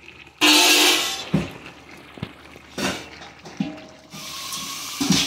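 A metal pot lid clatters down with a short ring, followed by a few sharp knocks of cookware on the stove.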